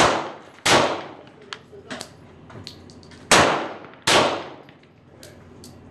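Four shots from a Glock 22 pistol in .40 S&W, in two pairs: two shots under a second apart, a pause of about two and a half seconds, then two more, each shot with a short fading echo.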